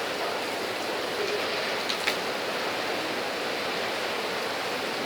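Steady rain falling, an even hiss with a couple of sharp drop impacts about two seconds in.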